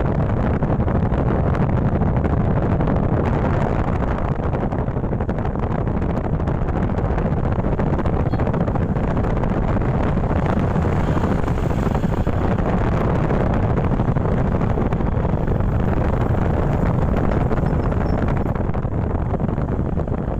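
Strong wind buffeting a smartphone microphone: a steady, loud, low rumble.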